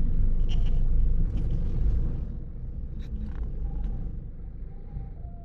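Car running, heard from inside the cabin: a steady low engine and road rumble that drops in level about two seconds in, with a few light clicks.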